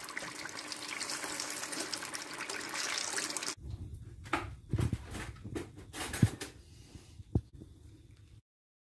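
Hot oil sizzling steadily in a pot as battered fish pieces deep-fry. The sizzle cuts off suddenly about three and a half seconds in, followed by quieter handling noises and a few soft knocks.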